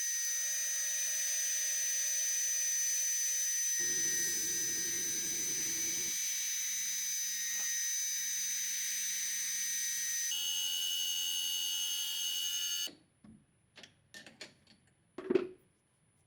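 Hobby CNC mill's spindle running with a steady high whine and hiss while milling an aluminium part; the sound shifts twice, about four seconds in and again near ten seconds. It stops abruptly a few seconds before the end, followed by a few faint knocks.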